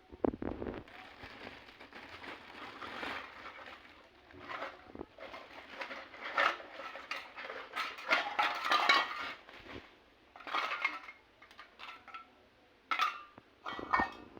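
Small toy kitchen pieces, play pots, pans, plates and utensils, clinking and clattering as they are handled, with bursts of rattling around the middle and a few sharp knocks near the end.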